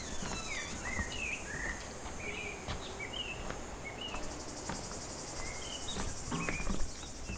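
Outdoor nature ambience: insects trilling in a steady high drone, with short bird chirps scattered throughout and a few faint clicks.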